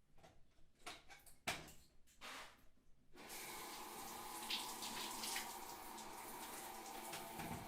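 A few brief knocks and rustles, then about three seconds in the shower comes on and its water runs steadily, spattering.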